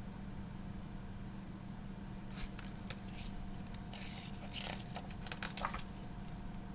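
Soft rustling and brushing of a picture book's paper pages as it is handled, a handful of short scrapes in the second half over a faint steady room hum.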